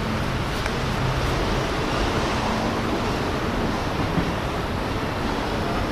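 Steady outdoor rushing noise at an even level, of the wind and distant traffic kind.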